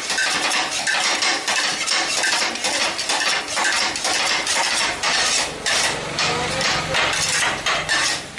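Kottu roti being chopped on a hot iron griddle with two flat metal blades: a fast, rhythmic metal-on-metal clatter. A low steady hum joins about six seconds in.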